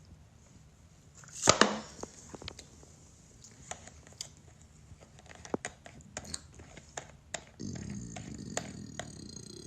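A person's burping and wet mouth sounds: a loud, sudden, short burst about a second and a half in, scattered small clicks, then a low, rough, rumbling sound over the last two seconds.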